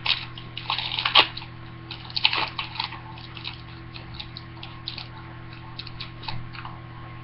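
SPX hockey trading cards being handled and slid against one another: quick, light rustles and clicks at an irregular pace, over a steady electrical mains hum.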